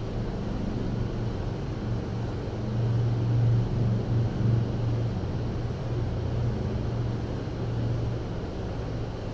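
Kitten purring close to the microphone: a low, continuous rumble that swells and fades unevenly, strongest a few seconds in.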